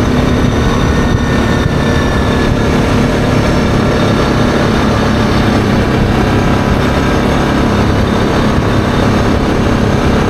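ATV engine running steadily while the quad cruises along at road speed.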